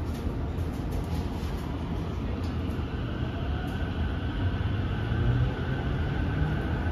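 Tokyo Metro 05 series subway train pulling away, heard from inside the car: the motor whine rises slowly in pitch over a steady low rumble of the wheels on the rails, and the rumble grows louder as the train gathers speed.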